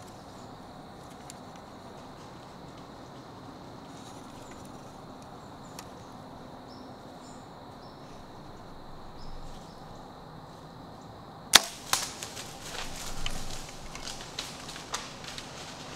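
Bow shot at a whitetail buck: a sharp crack about three-quarters of the way in and a second smack a moment later, the arrow clipping a branch on its way to the deer. The deer then crashes off through dry leaves and brush in a few seconds of crackling and rustling.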